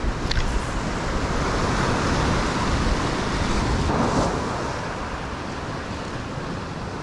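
Ocean swell breaking and washing against a rock ledge, with wind buffeting the microphone; the surf swells up about two seconds in and eases after four. A brief click sounds just after the start.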